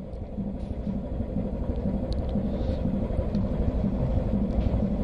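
Low, steady rumble of a ship under way, growing gradually louder.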